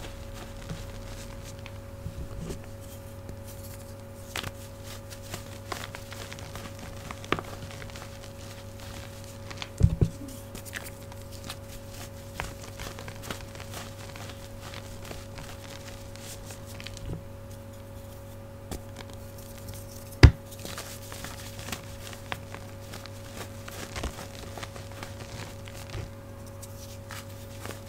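Hands crushing and crumbling reformed gym chalk: soft crunches and crackles of chalk and powder breaking and sifting between the fingers. There is a dull thump about ten seconds in and a sharp snap about twenty seconds in, which is the loudest sound. A steady low hum from an old refrigerator runs underneath.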